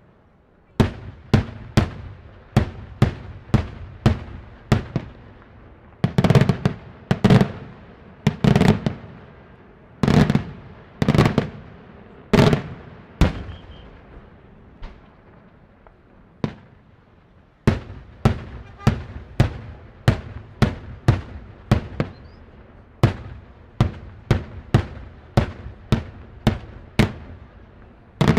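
Daytime aerial fireworks going off: a rapid string of sharp bangs, about two a second, each with a short ringing tail. Heavier clusters of bursts come in the middle, then the bangs thin out for a few seconds before picking up again.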